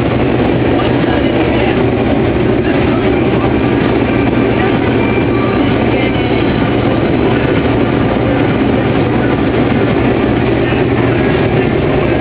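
Harvest machinery running steadily: a loud, even mechanical rumble with a constant low hum that does not change.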